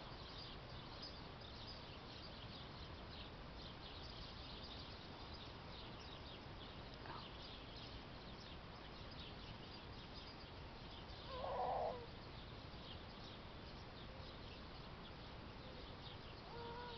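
Quiet outdoor arena background with faint high chirping throughout. A short, louder call comes about two-thirds of the way through, and a pitched whine begins near the end.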